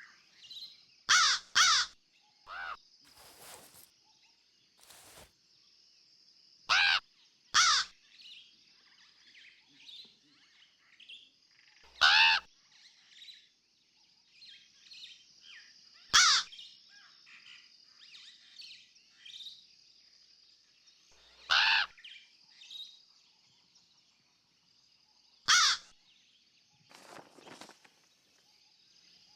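Crows cawing: loud, harsh single caws and pairs every few seconds. Beneath them run faint twittering chirps of smaller birds and a steady high-pitched tone.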